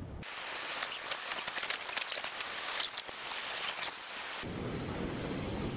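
Rough, typhoon-driven sea: a high hissing wash full of crackles for about four seconds, then an abrupt cut to a lower, steady rush.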